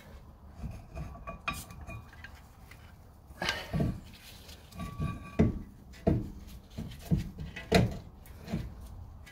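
Irregular metal clinks and knocks as a C3 Corvette's removed rear disc brake caliper is handled and set down to one side.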